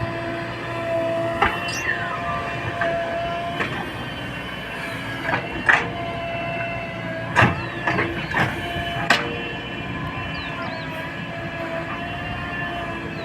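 Backhoe loader running, with a steady engine sound and a whine holding several tones, broken by a few sharp metallic clanks and brief squeals.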